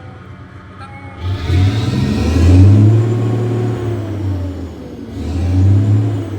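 Mitsubishi 6M70 inline-six turbo diesel in a tractor head running, revved up twice from idle, about a second in and again near the end, each time rising and settling back. The engine now starts and revs cleanly, its crank-no-start fault repaired.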